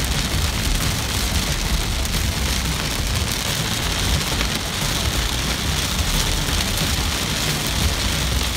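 Heavy rain falling on a car's windshield and roof, heard from inside the moving car as a steady hiss. Under it runs a low rumble of the car on the wet road.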